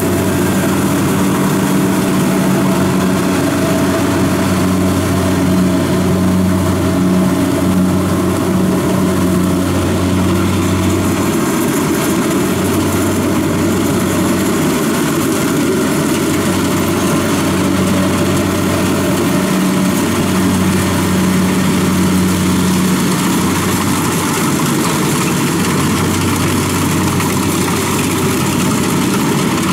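Kubota DC-70 combine harvester's diesel engine running steadily at working speed while the machine cuts rice.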